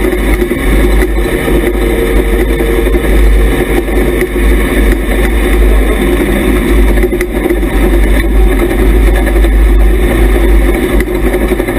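IMCA Hobby Stock dirt-track race car's engine running hard under racing load, heard from inside the cockpit: loud and steady, with a heavy low rumble.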